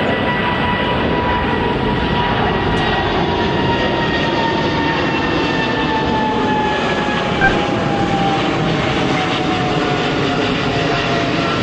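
Thai Airways twin-engine jet airliner climbing out just after takeoff: a loud, steady jet-engine roar with a whine that slowly falls in pitch as the plane goes by.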